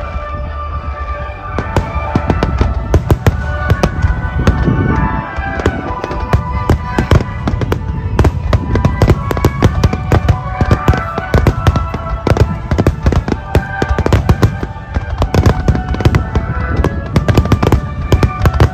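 A dense volley of aerial firework shells bursting, several loud bangs a second with crackling between them. Music plays underneath.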